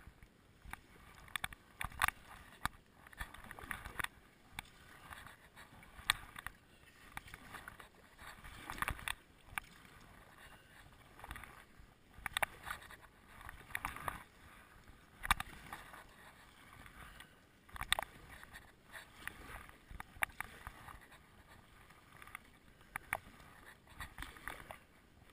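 Kayak paddle strokes: the blades dip and pull through the water one side after the other, a splash every second or two over a low wash of moving water.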